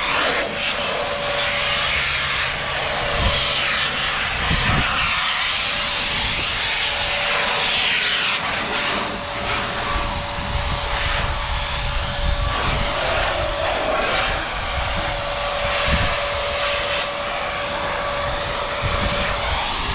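Handheld electric car-drying blower running steadily with a high whine over a rush of air that shifts as it is swept across the car. It is switched off at the very end, and the whine falls away as the motor spins down.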